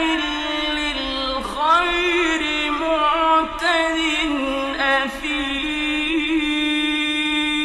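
A male Quran reciter chanting in slow, melodic mujawwad style, recorded for radio in 1959. The voice runs through ornamented turns, then holds one long line near a single pitch. It breaks off just at the end.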